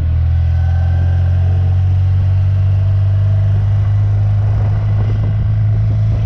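BMW R100RS's air-cooled flat-twin boxer engine running steadily while riding, a deep even drone with wind rush over the microphone.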